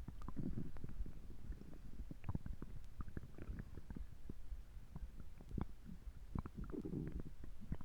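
Stomach gurgling and churning, with many small pops and squelches and two louder low gurgles, one about half a second in and one near the end.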